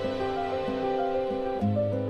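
Slow, soft instrumental background music: a gentle melody of held notes over a low sustained bass note.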